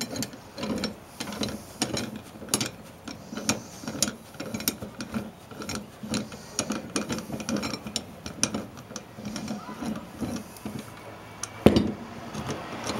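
Steel C-clamp's screw being turned by hand on a brake caliper, with irregular metal clicks and scraping, and one sharp knock about a second before the end.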